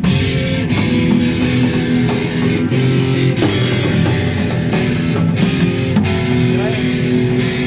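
Improvised garage rock led by guitar, with steady strummed chords and regular sharp beats, and a bright crash about three and a half seconds in.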